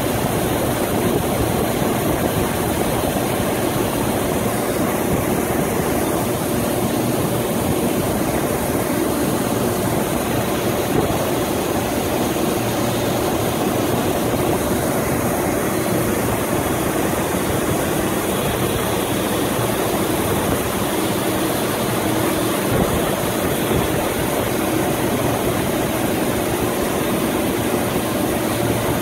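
Heavy engine of the Coast Guard tender Snell running steadily with a constant hum while its crane lifts a load.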